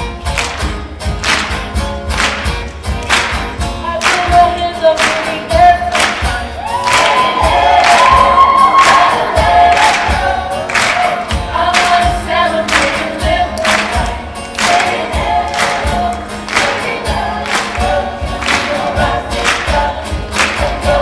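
Show choir singing an upbeat pop song over a live band, with a steady drum beat of about two beats a second. About seven seconds in the voices swell into a loud held note for a few seconds.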